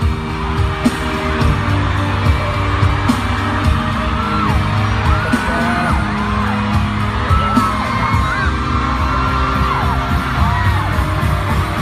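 Loud music with a crowd screaming and cheering over it, shrill whoops rising and falling throughout, and frequent low thuds.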